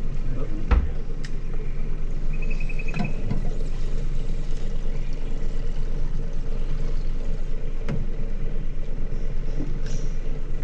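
Boat's outboard motor idling with a steady low hum. A couple of sharp knocks, one about a second in and one near the end, and a brief rapid clicking just after two seconds.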